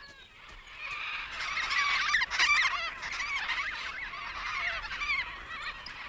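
A flock of Major Mitchell's cockatoos calling, many short calls overlapping. The calls start about half a second in and are loudest around two seconds in.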